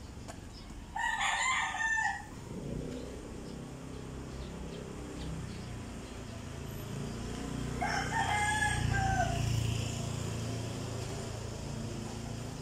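Rooster crowing twice, about seven seconds apart, each crow lasting a second or two and dropping at the end. A low rumble runs under the later part.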